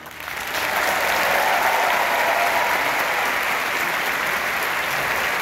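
Concert-hall audience applauding after an orchestra's final chord. The applause swells quickly over about the first second, then holds steady and full.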